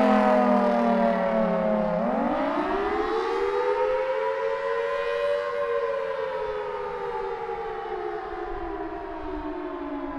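Federal Signal Thunderbolt 1003 outdoor warning siren sounding during a test. Its pitch falls, swings back up about two seconds in to a peak a few seconds later, then slowly falls again as it fades.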